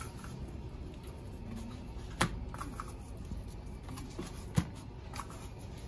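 Hands handling small plastic food containers while sprinkling dry seasoning over fish fillets: light rustling and scraping, with two sharp plastic clicks, about two seconds in and again just before five seconds.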